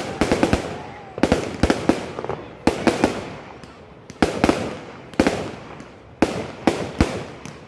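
Fireworks going off: a rapid run of sharp bangs coming in clusters every second or so, each fading out in an echoing tail.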